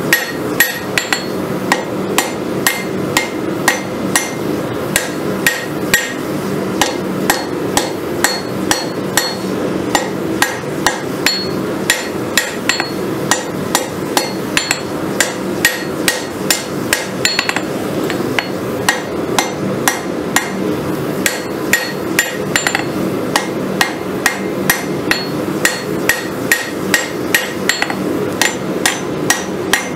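Hand hammer striking a red-hot farrier's rasp on a steel anvil, about two blows a second, as the rasp is rough-forged into a kukri blade.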